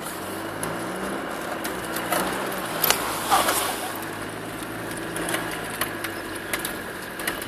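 Land Rover Discovery's four-cylinder turbodiesel engine driving under load, heard from inside the cab, its note rising and falling. Knocks and rattles from the vehicle come through repeatedly over the rough track.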